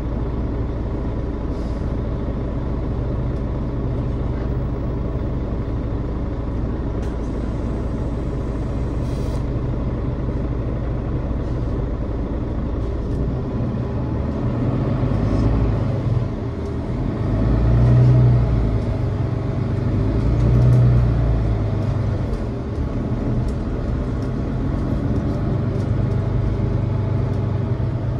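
Mercedes-Benz Citaro O530 city bus running, heard from inside the cabin as a steady low drone. Midway through the engine note swells three times as the bus pulls away and accelerates, then settles back to a steady run.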